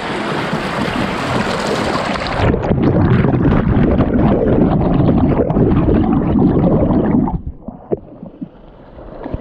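Rushing water at a dam's fish ladder. About two and a half seconds in the microphone goes underwater: the hiss vanishes and the water becomes a loud, muffled, churning gurgle. The gurgle drops away sharply about seven and a half seconds in.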